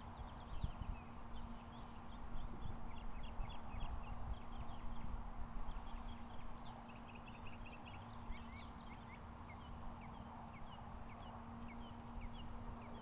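Birds chirping: many short, quick chirps through the whole stretch, busiest in the second half. Under them run a steady low hum and a low rumble of wind or handling noise.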